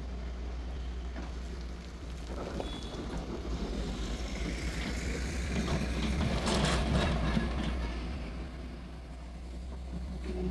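Diesel engine of a Hyundai excavator running steadily with a low hum, swelling louder for a few seconds in the middle as the machine works soil loading.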